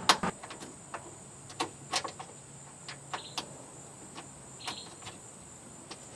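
Scattered sharp clicks and taps at irregular intervals: hand tools and metal fittings working as the glove box mounting bolts are tightened with a 7 mm socket. The two loudest come right at the start and about two seconds in.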